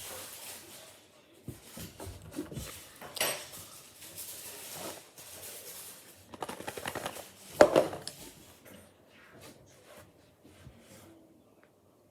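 Someone eating potato chips: irregular crisp crunching, loudest about three seconds in and again from about six to eight seconds, thinning to faint crackles near the end.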